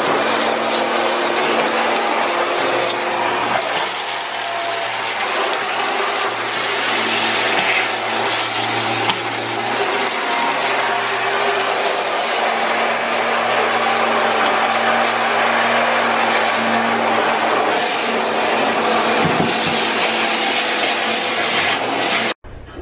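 Bissell PowerForce Helix Turbo upright vacuum cleaner running steadily with a thin high whine, then switched off suddenly near the end.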